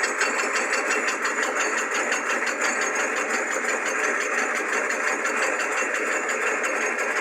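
Drill press motor spinning a cutter across a small-block Chevy cylinder head as the lathe's power feed carries the cut: a steady machine whir with a fast, even pulsing and a thin high whine on top.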